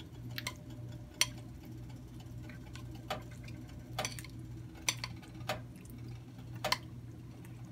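Metal spoon clicking and scraping against a ceramic bowl as raw ground pork is scooped out, a handful of sharp, irregularly spaced clinks over a steady low hum.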